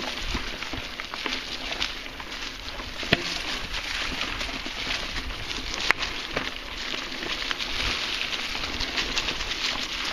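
Mountain bike tyres rolling over dry fallen leaves on a dirt trail, a steady crackling rustle with many small clicks, and two sharper knocks from the bike about three and six seconds in.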